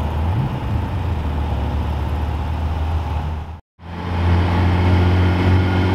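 Classic Ferrari coupe's engine running steadily at low revs as the car rolls slowly, with a slight rise in revs just after the start. The sound drops out briefly about two thirds in, then an engine is heard again, louder and steady.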